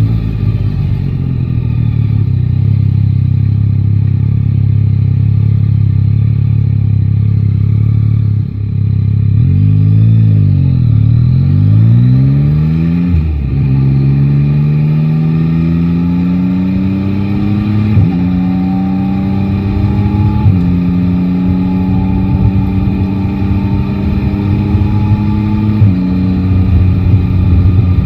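Yamaha Tracer 9 GT's three-cylinder engine heard from the rider's seat. It runs at low, steady revs, swings down and back up in pitch about ten seconds in, then pulls away. The pitch climbs steadily and drops sharply at three upshifts in the second half.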